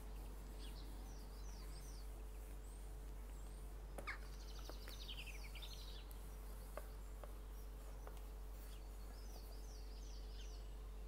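Faint bird chirps in short repeated series, three bursts of them, over a steady low hum. A few light clicks and taps from a cardboard box being handled, the sharpest about four seconds in.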